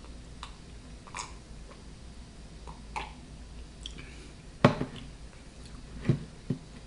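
Quiet sipping and chewing sounds with small mouth clicks, then a sharp knock about two-thirds of the way in as a plastic mug is set down on the table, followed by two softer knocks.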